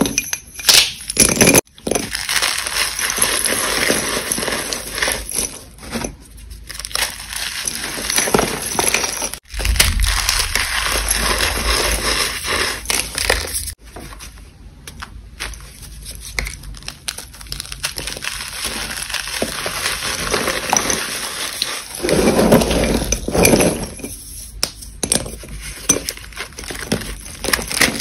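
Dry reformed gym chalk crushed and crumbled by hand, a continuous crunching crackle. In the first couple of seconds there are sharp clicks of school chalk sticks knocking together.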